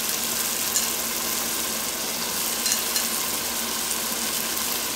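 Raw beef chunks sizzling in hot oil with chopped onions and spices in a pot: a steady frying hiss with a few light crackles.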